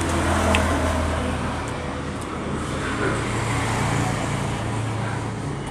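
Road traffic going by: motor vehicles running with a steady low engine hum that shifts and swells about three seconds in.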